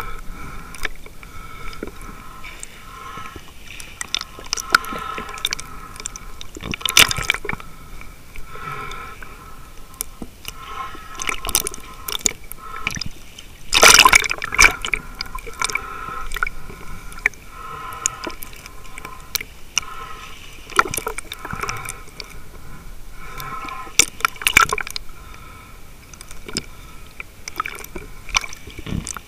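Underwater sound of sea water moving and sloshing around a submerged action camera in the waves, with many irregular clicks and knocks; the loudest burst comes about halfway through.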